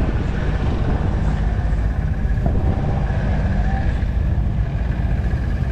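Steady low wind rumble buffeting the microphone, with faint distant voices in the background.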